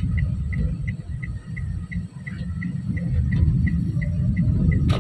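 TransJakarta bus running, a steady low rumble from the engine and road, heard from inside. Over it a short high beep repeats about three times a second, stops just before the end, and is followed by a single sharp click.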